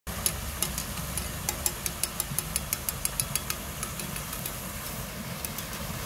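Water from the spillways of a stacked-slate wall fountain pouring steadily into a tiled pool: a low, steady rush of falling water. In the first three and a half seconds a quick run of sharp ticks, several a second, sits on top of it, then stops.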